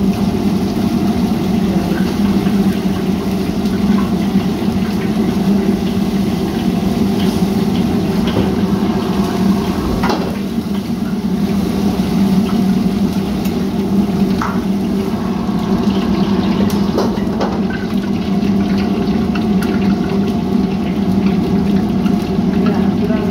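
Steady din of a commercial wok range with its gas burners running, water pouring from the range's tap into a wok, and a few clinks and scrapes of a ladle on a wok.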